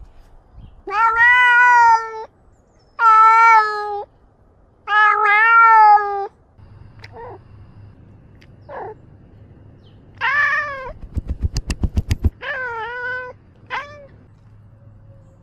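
Domestic cat meowing close to the microphone: three long meows, then two short chirps, then two more meows later on. Just past the middle there is about a second of quick knocks, roughly eight a second.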